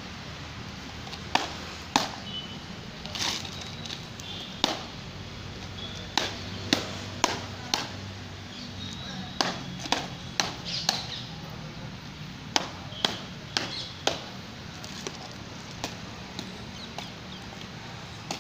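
Quarter guard drill impacts: sharp stamps and slaps of soldiers' parade drill, about twenty over the stretch, coming irregularly, sometimes in quick runs about half a second apart.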